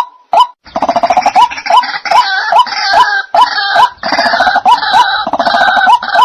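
White-breasted waterhens (dahuk) calling: a repeated hooked note about three times a second, joined under a second in by a harsher, layered croaking chorus.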